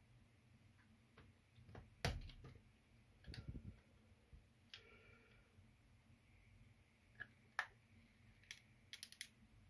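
Small clicks and taps of a plastic Renault key card and a metal tool being handled: a sharp click about two seconds in, a short clatter a second later, and a run of quick clicks near the end as the card's shell halves are pressed together.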